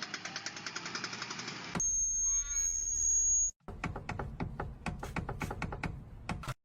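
A string of short car-noise clips cut hard together: a rapid mechanical rattle of about ten ticks a second, then a loud, steady, high-pitched squeal lasting nearly two seconds, then a sharp ticking or knocking about four times a second.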